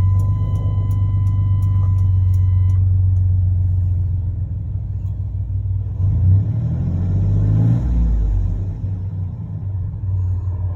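Chevy 4.3-litre V6 idling steadily just after starting. It is now staying running on a newly replaced mass airflow sensor, where before it would start and die. The engine is revved briefly about two-thirds of the way in. A steady high electronic tone sounds for the first three seconds.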